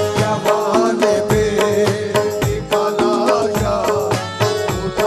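Qawwali music between sung lines: a keyboard carries the melody in long held notes over a steady, quick hand-drum rhythm.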